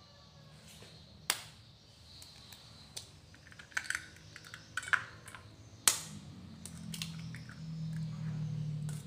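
Eggs being cracked with a metal spoon into a stainless steel bowl: a handful of separate sharp taps and clicks of spoon on shell and metal, with the loudest tap about six seconds in.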